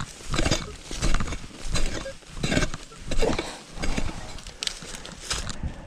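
A long-handled digging tool chopping into soft farm soil in repeated strokes, a little more than one a second, each a sudden scrape and thud of the blade breaking and throwing dirt as a hole is dug to recover a metal-detector target.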